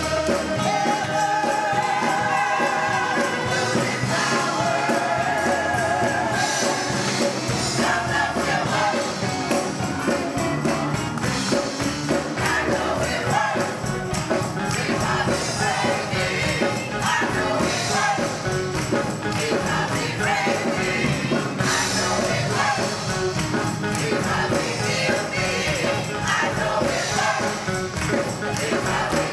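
Gospel choir singing with instrumental accompaniment and a steady beat, with tambourine.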